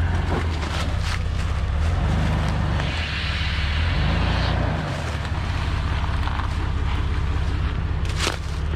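Off-road vehicle's engine running slowly at low revs as it crawls down a rocky descent, with a hiss for about a second and a half midway and a few sharp knocks, the loudest near the end.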